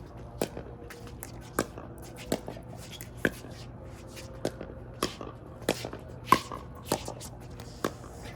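Pickleball rally: paddles hitting a hard plastic pickleball with sharp pops, about ten hits at uneven spacing of half a second to a second, the loudest about six seconds in.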